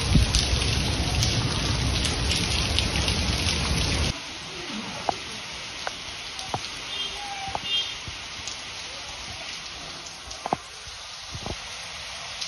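Heavy rain falling on garden foliage and surfaces, a dense steady hiss. About four seconds in it drops suddenly to a quieter rain hiss with separate drops ticking close by.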